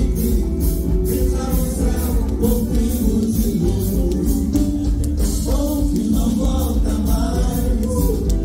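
Live music from an orchestra with strings, playing to a steady beat, with male singers singing into microphones.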